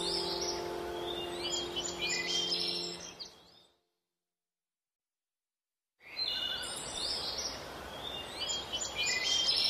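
Birds chirping over a steady outdoor hiss, with held music tones fading out during the first three seconds. The sound drops to dead silence for about two seconds in the middle, then the chirping and hiss return.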